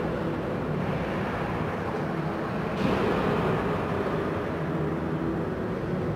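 Steady rumbling hum and noise of an indoor ice hockey rink, with one sharp knock near the middle.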